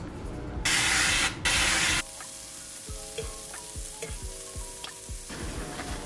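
Two hissing sprays of avocado oil cooking spray from an aerosol can into a frying pan. After that come a faint sizzle of tortillas frying and light clicks of a utensil in the pan, under soft background music with held notes.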